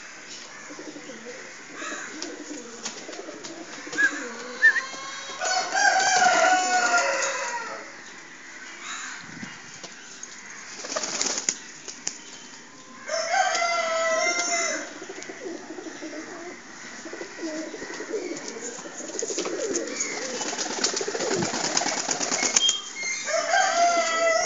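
Pigeons cooing in a loft, low and continuous, with a rooster crowing three times: about five seconds in, about thirteen seconds in, and near the end. Brief rustles of wing flapping come in between.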